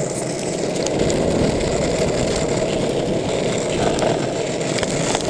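Longboard wheels rolling over asphalt: a steady, even rumble.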